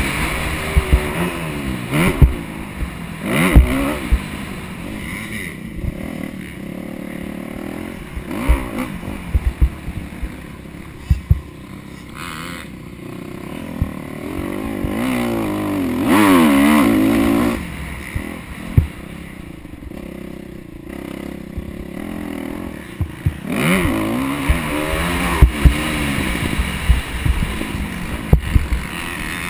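Motocross dirt bike engine revving up and down through the gears, loudest in surges near the start, in the middle and near the end, with quieter running between. Frequent sharp knocks and thumps run through it.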